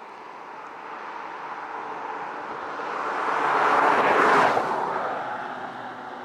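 A vehicle passing by: a rushing noise that swells steadily to its loudest about four seconds in, then fades away.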